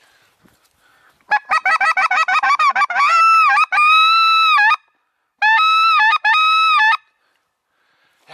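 Hunter's goose call blown close by: a rapid run of short honks, about eight a second, followed by two long drawn-out honks held at a steady pitch.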